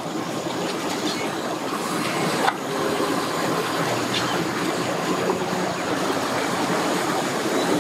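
Large outboard motor on a pontoon boat running at low speed, churning the water behind it, with steady boat-ramp background noise. A single sharp knock about two and a half seconds in.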